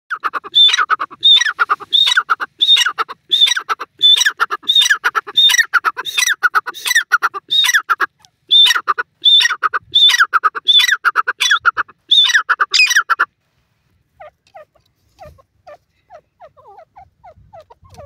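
Grey francolin calling, one loud repeated call about every 0.6 s, with a brief pause near eight seconds. About thirteen seconds in, the loud calling stops abruptly and only faint short notes go on.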